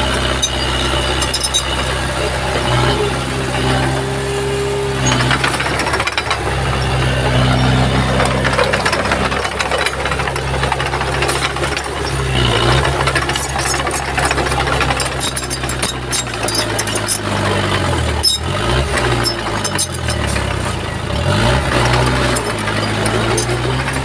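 Crawler bulldozer's diesel engine working steadily. Its pitch sags and recovers once around halfway through and several times near the end, as the engine takes load.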